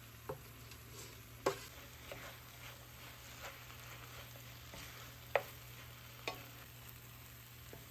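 Bhindi masala frying in a pan with a faint, steady sizzle while it is stirred. A utensil knocks sharply against the pan a few times, loudest about five and a half seconds in.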